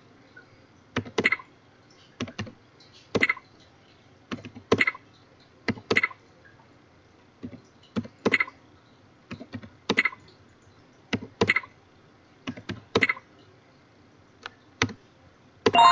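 Computer keyboard keystrokes in small groups of two or three, about every one and a half seconds, as one- and two-digit answers to a timed addition drill are typed and entered one after another. A ringing electronic chime starts right at the end.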